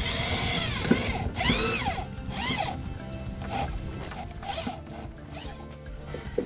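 Handheld corded electric drill boring into a wooden boat plank, its pitch repeatedly rising and falling.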